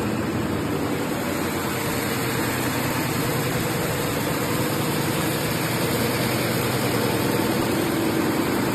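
Conveyor-fed metal sanding machine running steadily: a continuous even mechanical noise with a faint low hum.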